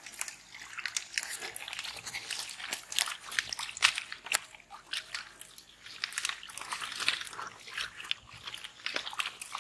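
Hands groping through thick pond mud and water hyacinth: a dense run of irregular wet squelches and crackles.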